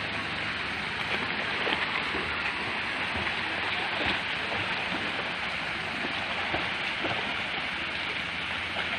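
Fountain water from a pool play structure pouring steadily onto the pool surface, a rain-like hiss, with a few brief splashes from children swimming.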